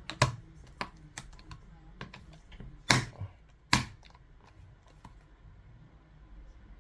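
Clicks and knocks from handling the reassembled Bose SoundLink Color II speaker, with three sharper knocks about a quarter second, three seconds and four seconds in, then only faint small clicks.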